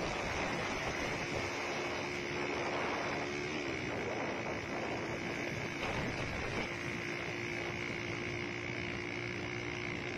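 Steady wind rush and road noise from a motorcycle moving at speed, with a faint steady engine hum underneath.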